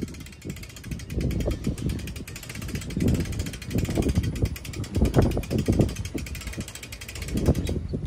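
Hand-cranked boat trailer winch being wound in, its pawl clicking rapidly as the strap draws the boat onto the trailer, with uneven low rumbling through it.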